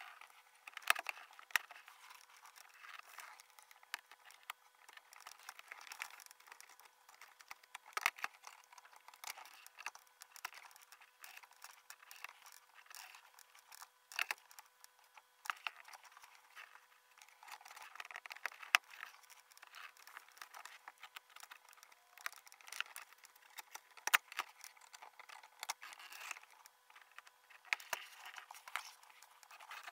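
Laparoscopic needle holder and grasper clicking and scraping while suturing in a box trainer, sped up five-fold into a rapid, faint run of sharp clicks and rustles.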